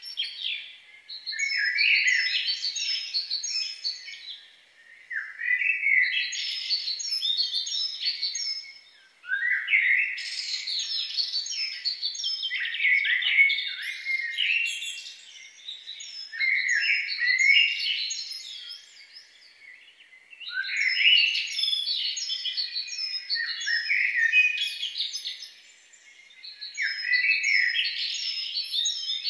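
Songbirds singing: long phrases of rapid, varied chirping notes lasting a few seconds each, broken by short pauses, with a run of quick repeated high notes over the top.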